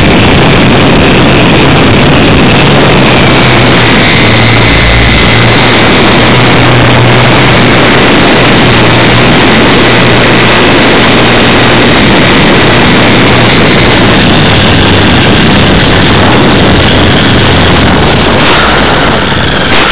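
A Hobbyzone Super Cub RC plane's electric motor and propeller running in flight, with wind rushing over a microphone mounted on the plane: a loud, distorted noise with a faint high whine that sinks slightly in pitch and fades after the middle.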